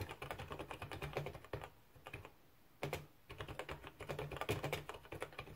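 Typing on a Tandy TRS-80 Model 100 keyboard: quick runs of key clicks, with a pause of about a second after the first couple of seconds before the typing picks up again.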